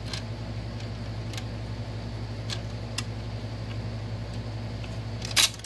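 Magnavox stereo console with its Micromatic record changer running idle after the tone arm has returned to rest: a steady low electrical hum with a few faint clicks, and one louder click near the end.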